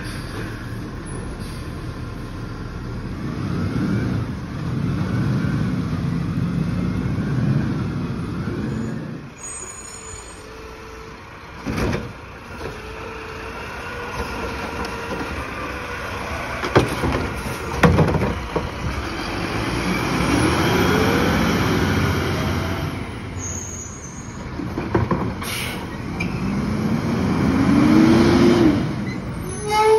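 Diesel garbage trucks at work, a rear loader and an automated side loader. The engine runs and several times revs up in a rising pitch, and there are a few sharp knocks as the side loader's arm lifts and dumps a cart.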